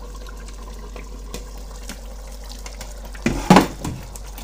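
Chicken curry simmering in a covered pot, a steady bubbling hiss; a little past three seconds in, the glass lid is lifted off and clatters against the pot's metal rim.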